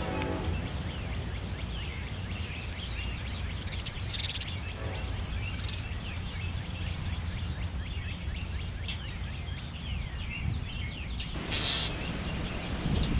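Small birds chirping now and then over a steady low outdoor rumble, with a couple of short bursts of rustling noise.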